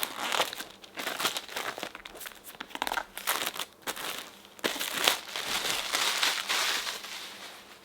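Plastic shrink wrap being peeled off a 2020 iPad Pro's box, crinkling and crackling irregularly throughout.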